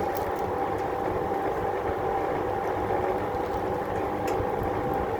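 A Lakewood/Penney's box fan from the 1960s or 70s running steadily, its motor hum and steady tones sitting under the rushing of the air it blows.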